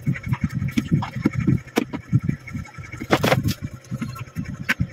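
White plastic panels of a stackable storage cabinet knocking and clicking as they are handled and fitted together, with a few sharp clicks standing out about two, three and five seconds in.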